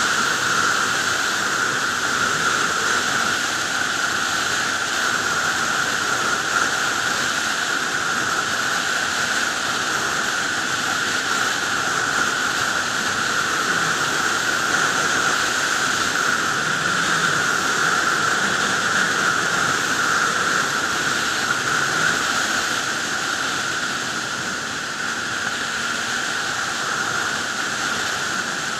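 Steady wind rush on the microphone of a sport motorcycle riding at highway speed, with no distinct engine note standing out.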